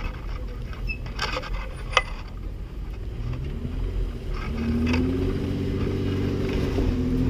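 Jeep Wrangler engine running at low revs as it crawls along a snowy trail, the engine note rising a few seconds in and then holding steady. A few sharp clicks sound early on, the sharpest about two seconds in.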